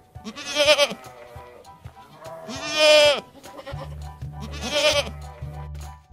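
Goats and sheep bleating: three wavering bleats about two seconds apart, the middle one the longest and loudest. A low, steady music bed comes in a little past halfway.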